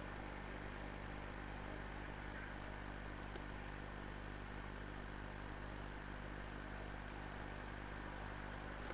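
Class 37 diesel locomotive idling at a standstill, a steady unchanging engine drone.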